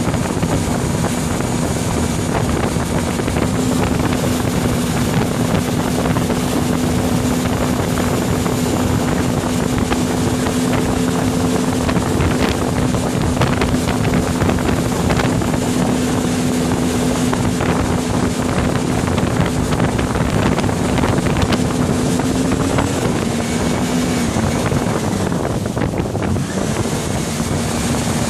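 Motorboat engine running steadily at towing speed over the rush of the churning wake, with wind buffeting the microphone. A little over twenty seconds in, the engine note dips lower, as the throttle is eased back, then settles again near the end.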